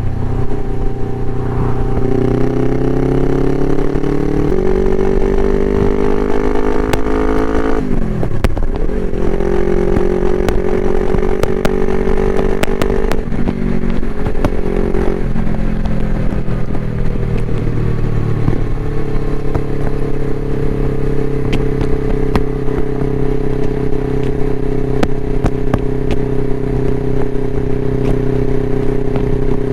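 Suzuki GS500E motorcycle's parallel-twin engine running through a Takkoni aftermarket exhaust, climbing in revs for several seconds, dropping sharply about eight seconds in, then settling to steady cruising revs. Scattered sharp crackles sound over it.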